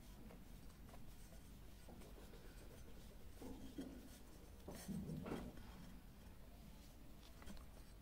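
Faint scratching and small metallic clicks as fingers thread metal F-type coaxial connectors onto a threaded barrel adapter. A slightly louder patch of scraping comes about five seconds in.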